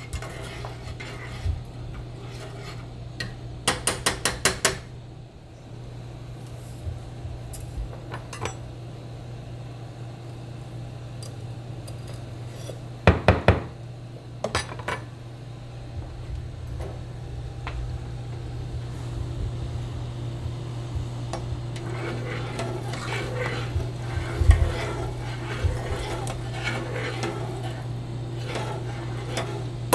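Metal kitchen utensils at work: a knife taps rapidly against a copper measuring cup about four seconds in and knocks sharply a couple of times near the middle while sugar is leveled off, then a metal utensil clinks and scrapes in a saucepan of water as the sugar is poured in and stirred. A steady low hum runs underneath.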